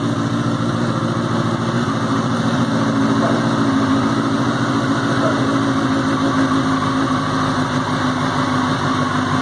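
Benelli TNT 600i's 600 cc inline-four engine idling steadily.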